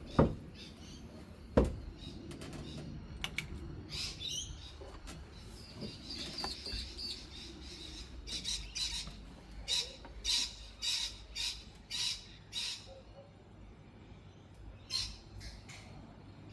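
A bird chirping in short, high calls, repeated about twice a second through the middle stretch, over a low steady hum. Two sharp clicks come in the first two seconds.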